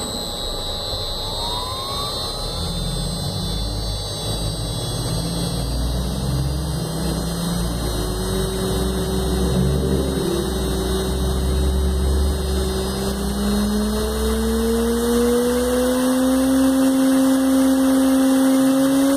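1.5 kW CNC spindle motor on a variable frequency drive, starting up and running, with a low hum and a whine that climbs steadily in pitch through the second half as its speed is raised.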